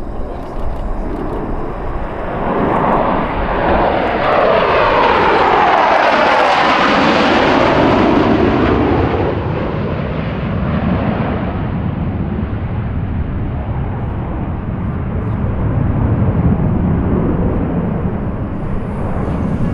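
Formation of six F-16 Fighting Falcon jets flying past: the jet noise builds about two seconds in and is loudest from about four to nine seconds in, with a sweeping, phasing whoosh. It then drops to a lower, steady rumble.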